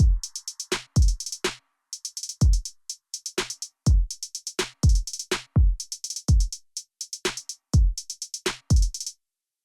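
Background music: an electronic drum-machine beat of deep kick drums and crisp hi-hat ticks. It stops abruptly just before the end.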